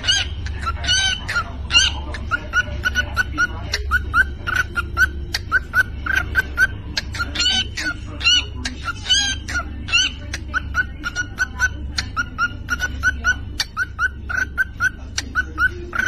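Cockatiel making a fast, rhythmic string of short chirps and sharp clicks, about two to three a second, in the beatbox-like vocal routine the bird is known for.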